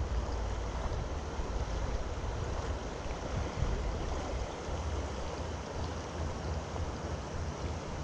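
Steady rush of a creek's current, with wind rumbling on the microphone.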